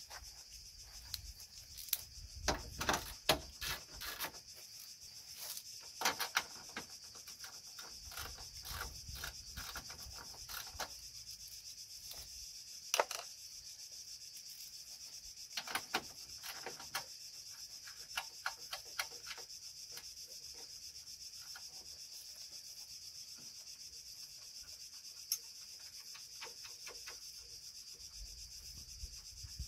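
Scattered clicks, taps and knocks of hand tools and metal and plastic parts being handled while working on a car's front end, busiest in the first half. Under them runs a steady high insect drone.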